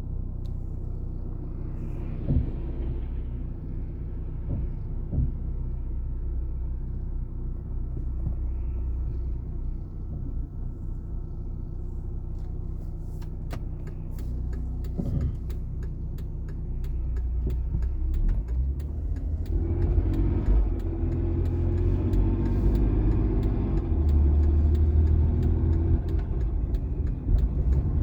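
Volvo XC60 T6's turbocharged six-cylinder engine running with a loud, diesel-like clatter of rapid ticks that grow denser partway through, and the whole sound gets louder about two-thirds of the way in. The noise is one the owner likens to a collapsed hydraulic lifter.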